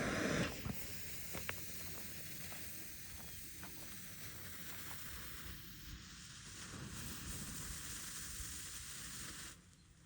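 Big Daddy smoke bomb firework burning with a steady hiss, louder for a moment as it catches. The hiss cuts off suddenly near the end.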